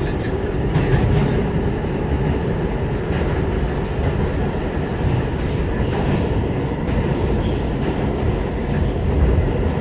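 Inside an R211A subway car running between stations: the steady low rumble of wheels on rail, with a few faint clicks over it.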